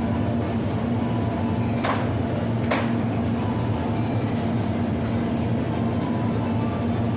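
Shop-floor ambience inside a large store: a steady hum with low droning tones, broken by two sharp clacks about two and three seconds in.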